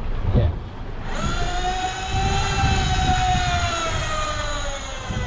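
Electric deep-drop fishing reel winding under heavy load with a big fish on: a motor whine starts about a second in and slowly drops in pitch as it strains, over a low rumble.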